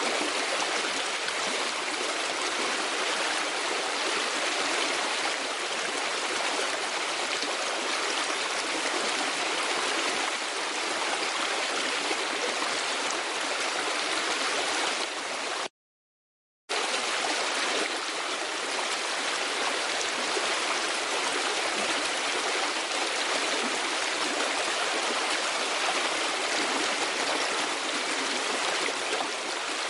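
Steady rushing of a stream, an even watery hiss with no pauses or changes, cutting out completely for about a second around the middle before resuming.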